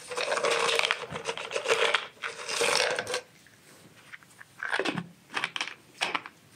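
Crinkling, crushing handling noise for about three seconds, then a few short clicks.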